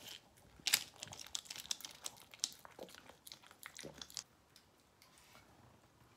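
Crumpled foil yogurt lid crinkling and crackling as a small terrier licks yogurt off it, with the dog's mouth smacking, in quick irregular crackles that stop about four seconds in.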